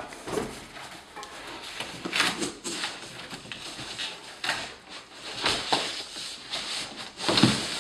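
Cardboard shipping box and packaging rustling and scraping in irregular bursts as a bicycle's wrapped-together parts are pulled up out of it, with a louder knock near the end.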